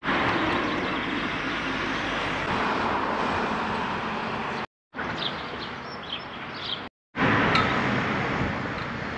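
Steady rush of road traffic noise in three short pieces, each ending abruptly in a brief silence.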